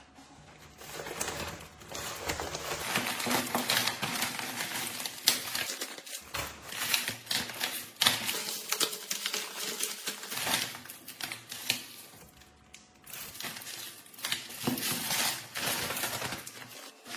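Dense, rapid clicking and tapping of small hard objects, easing off briefly about twelve seconds in.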